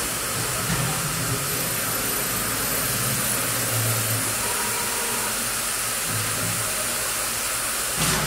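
GP400 glass screen printer running: a steady hiss with a low motor hum that swells briefly three times as the print head moves.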